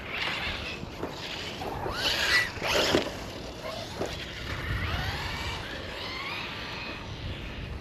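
Brushless electric motor of a Rustler BL-2s RC truck whining, its pitch rising and falling as the throttle is worked, with two short loud bursts of noise around two to three seconds in.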